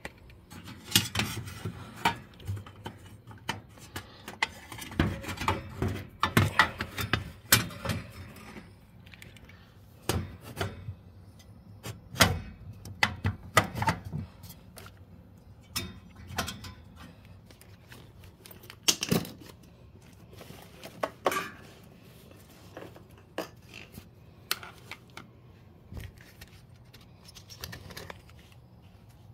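Irregular metallic clinks, taps and rattles of tools and parts being handled at the burner and pilot assembly of an old Burnham gas boiler, during work to replace the pilot thermocouple. The sounds come in clusters of quick knocks with short pauses between them.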